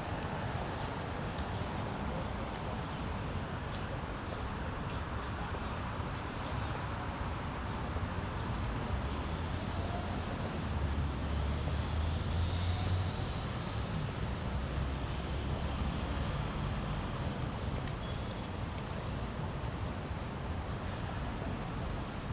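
Street traffic noise: road vehicles running past, with a louder low rumble of a passing vehicle about eleven to thirteen seconds in.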